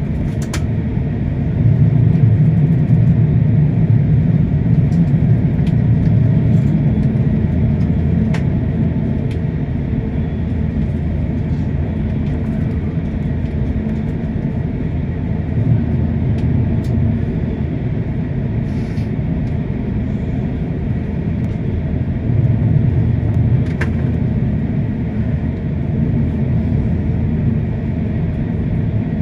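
Steady low rumble of an airliner taxiing, heard inside the cabin, swelling for a few seconds early on and again about three-quarters through, with a few light clicks.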